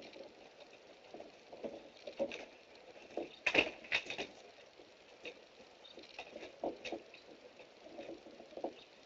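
A wolfdog's claws and paws tapping and scratching on the wooden deck and at a sliding glass door, with irregular light clicks and a cluster of louder knocks about three and a half seconds in.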